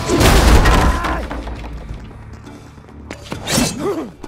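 Loud crash of a table smashing as a body is kicked into it, with breaking and splintering debris that trails off over about a second. It is a sound-designed fight impact over a music score.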